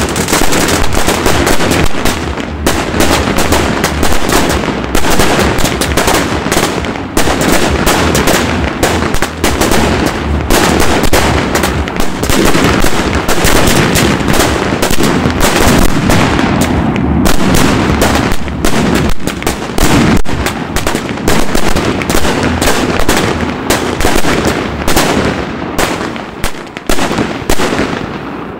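A fireworks finale barrage: a dense, rapid string of launches and bursting shells, bang after bang with hardly a gap, thinning out over the last few seconds.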